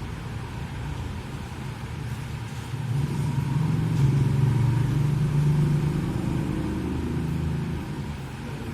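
Low engine rumble of a road vehicle, growing louder about three seconds in and easing off near the end.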